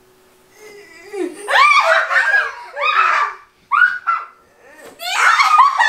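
A woman and children laughing and giggling in several high-pitched bursts, the first starting about a second in and another near the end.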